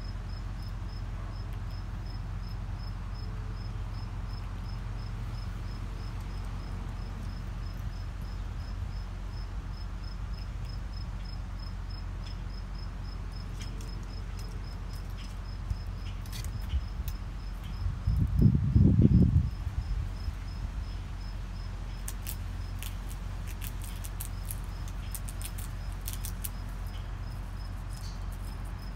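Crickets chirping, a high pulsing note repeating evenly several times a second, over a steady low hum. About two-thirds of the way through, a loud low rumble lasts about two seconds, followed by a run of sharp high clicks.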